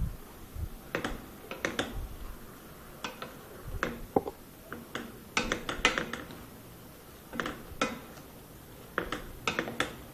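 Wooden spatulas knocking and scraping against a stainless steel pan while stir-fried vegetables are tossed: irregular clusters of sharp clacks, with quieter stretches between them.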